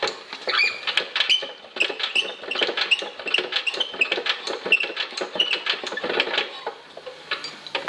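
Chaise Véga stationary engine being cranked over by hand without catching: a fast, irregular run of clicks and short high squeaks as it turns, dying away near the end.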